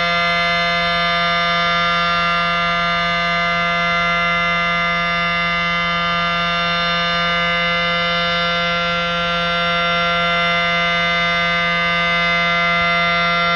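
Federal Sign & Signal Model 7T outdoor warning siren sounding at full speed, holding a steady two-note tone.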